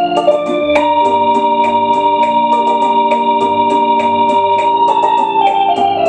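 Hammond electric organ played in sustained chords with a long held top note, over a steady light ticking beat of about four a second.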